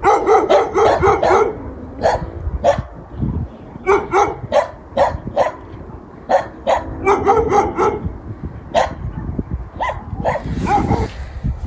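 Dog barking repeatedly: short, sharp barks in bunches, near the start, around four and seven seconds in, and again near the end.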